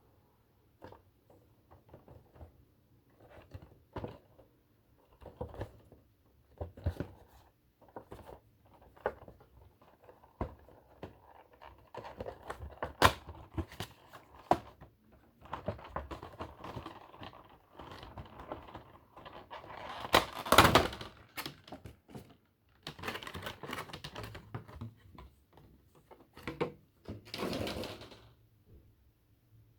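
Hands handling and opening a Funko Pop vinyl figure's packaging: scattered clicks and knocks at first, then longer stretches of cardboard and plastic rustling, loudest a little past the middle and again near the end.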